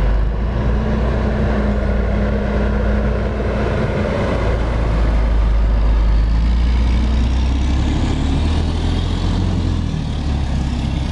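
Street traffic dominated by a heavy truck's engine, a low rumble that grows louder about halfway through as a garbage truck comes up alongside.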